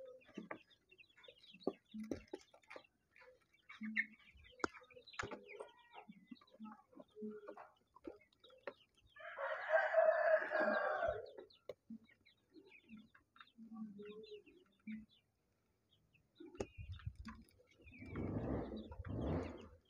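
Piso heritage chicks in a brooding pen, with scattered soft peeps and small scratching sounds. About nine seconds in a chicken crows once, for about two and a half seconds. Near the end there is a louder rustling.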